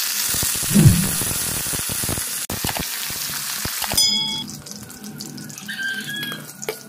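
Moringa drumstick pieces sizzling loudly in hot mustard oil in a kadai. The sizzle cuts off abruptly about four seconds in, leaving quieter sound with a few short high chirps.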